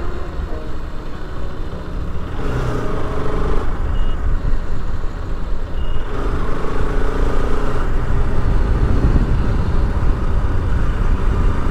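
Bajaj Pulsar RS200's single-cylinder engine running while riding, under heavy wind rumble on the microphone. The engine note swells twice as the throttle opens.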